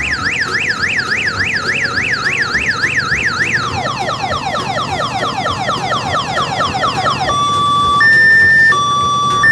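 Electronic multi-tone siren horn on an odong-odong tour train, loud and shrill, cycling through its patterns: a fast up-and-down yelp about three times a second, then quick falling sweeps about four times a second from just under four seconds in, then a two-tone hi-lo alternation for the last two seconds.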